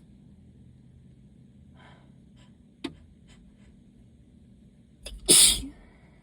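A person sneezing once, loudly, about five seconds in, an allergy sneeze. It follows a few quiet breaths and a brief sharp catch about three seconds in.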